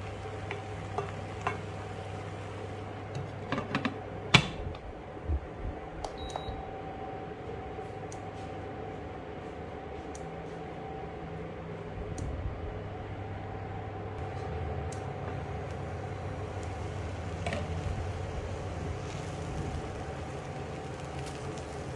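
Induction cooktop humming steadily with its fan running, under a few light clicks and one sharp clank about four seconds in as the glass lid goes onto the stainless steel pan.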